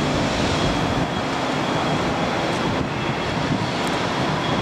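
Steady noise of vehicles on the street, with a faint steady high whine above it.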